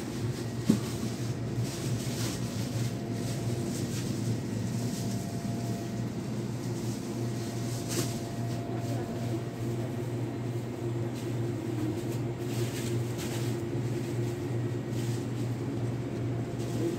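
Steady low mechanical hum, with faint rustling and a single sharp click about a second in.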